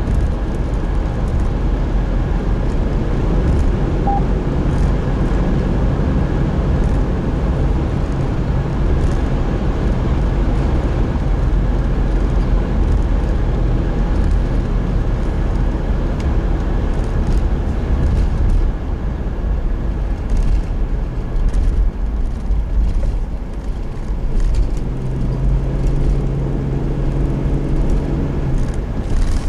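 Fire apparatus on the move: steady engine and road rumble, with a low steady drone that comes in for a few seconds near the end.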